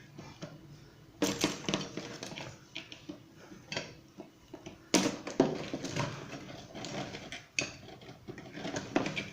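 Irregular knocks, clicks and rustling from hands handling a ceiling fan motor and its wiring, with the sharpest knock about five seconds in.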